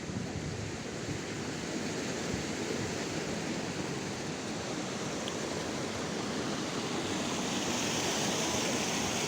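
A waterfall rushing: a steady, even noise of falling water that grows a little louder toward the end.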